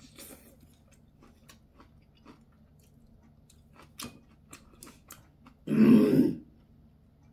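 Eating sounds: chewing, with small clicks of chopsticks against a dish. About six seconds in comes one short, loud throat sound, like a grunt or a clearing of the throat.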